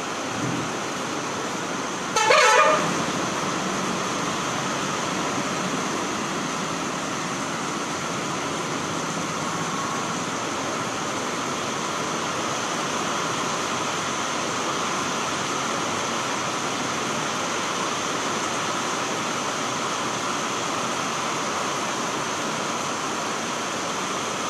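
Heavy rain falling steadily, a continuous hiss of water. About two seconds in, a vehicle horn honks once, briefly and loudly.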